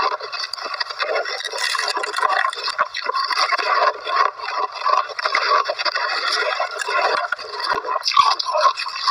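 Close-miked crunching of shaved ice being bitten and chewed, a dense run of rapid crackly crunches with no pauses.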